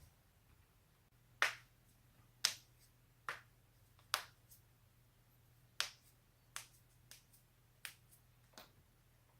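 A series of about nine sharp joint cracks, unevenly spaced roughly a second apart, the loudest ones in the first half, with a few fainter pops between. A faint steady hum lies underneath.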